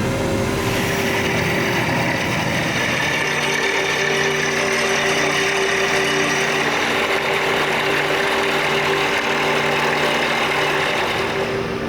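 Borehole drilling rig for a ground-source heat pump running steadily, a loud, even mechanical drone with a hiss over it.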